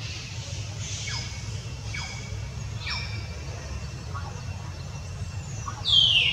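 Short, high animal calls that slide down in pitch, about one a second, then a louder falling squeal near the end, over a steady low rumble.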